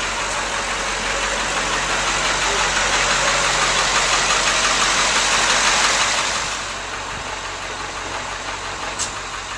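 Dump truck's engine idling steadily. It is louder for the first six seconds or so, then drops back, with one short click near the end.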